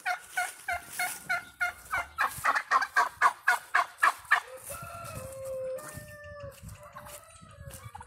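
Domestic turkeys calling in a long run of quick, repeated notes that speed up toward the middle. Then a rooster crows in several drawn-out segments.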